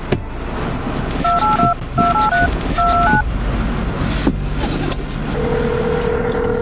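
Phone keypad tones as a number is dialed: a quick run of short two-note beeps. Near the end a steady ringing tone on the line starts, all over a low car rumble.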